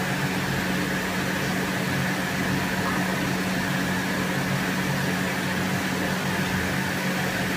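Room ventilation running: a steady low hum with an even hiss.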